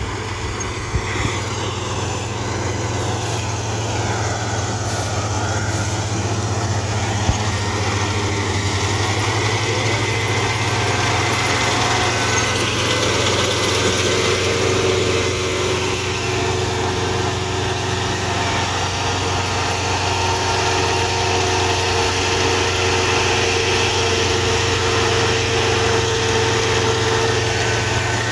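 Kubota SR55 mini combine harvester running steadily while cutting rice, a continuous machine drone. Higher steady whining tones join in about halfway through.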